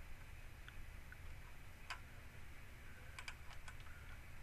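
A few faint, scattered clicks from working a computer, the clearest about two seconds in and a quick cluster of three near the end, over a low steady hum.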